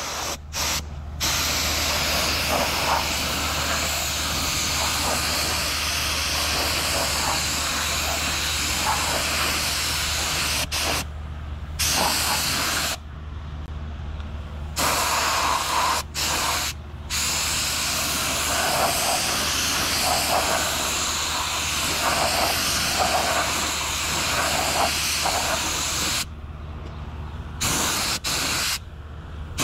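Compressed-air paint spray gun hissing through long passes of satin black paint. The hiss breaks off for a second or so several times as the trigger is let go. A steady low hum runs underneath.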